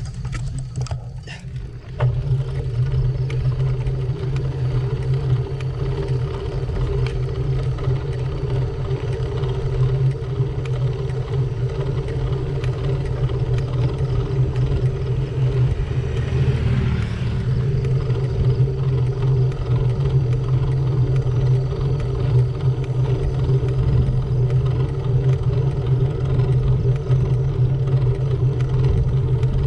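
Steady wind rush and road rumble on a bike-mounted GoPro Hero7 microphone while a road bike is ridden, setting in suddenly about two seconds in.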